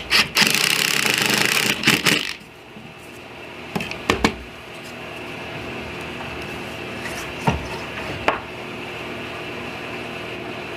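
A power tool runs loudly for about two seconds and cuts off abruptly. A few sharp knocks of wood follow, twice in quick pairs, over a steady shop hum.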